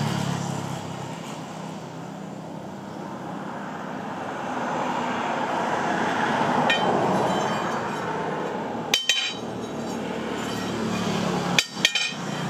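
A few sharp metallic clinks of a steel leaf spring knocking against a small anvil as it is handled and set down, two of them close together near the end, over a steady background hum.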